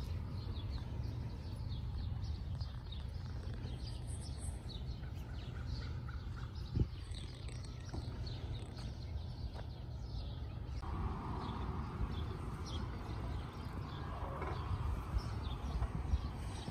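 Small birds chirping again and again, high and short, over a steady low rumble, with a single click partway through.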